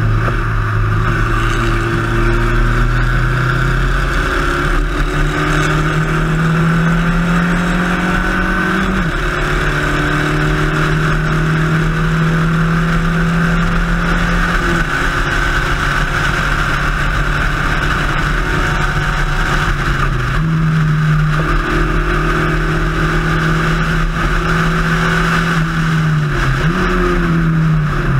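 Spec Racer Ford race car's four-cylinder engine running hard at racing speed. Its pitch climbs slowly in each gear, drops at upshifts about nine and fifteen seconds in, and jumps up at downshifts around twenty seconds and near the end.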